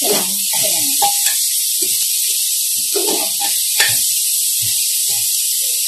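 Mutton pieces sizzling in hot desi ghee in an aluminium pressure cooker, a loud steady hiss, with a metal spoon clinking and scraping against the pot as the pieces are turned.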